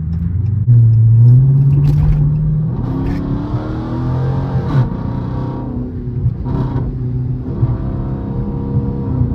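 Chrysler 300's V8 engine under hard acceleration in sport mode, its note climbing in pitch and falling back at two upshifts, heard from inside the cabin with the windows up.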